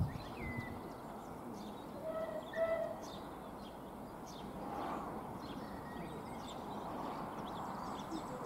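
Small birds chirping and singing throughout, with two short, clear pitched notes about two seconds in. From the middle onward a faint, even rush builds slowly underneath as Bulleid Merchant Navy steam locomotive 35028 'Clan Line' approaches in the distance.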